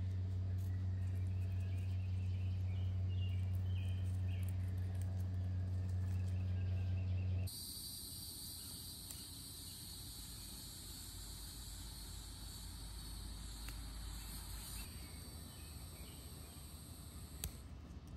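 Cicadas droning loudly and steadily, starting abruptly about seven seconds in and thinning out near the end. Before that, a steady low hum with faint chirping dominates; one sharp click near the end.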